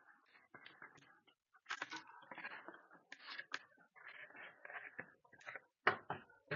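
Magnet packaging being handled and opened by hand: irregular scraping and rustling with small clicks, and a sharp knock near the end.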